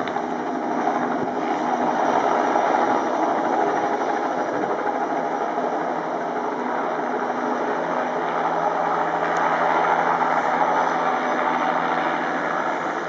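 Bell 206B-3 JetRanger III helicopter hovering just above the ground, its turbine and main rotor running with a steady, even noise that swells slightly a couple of times.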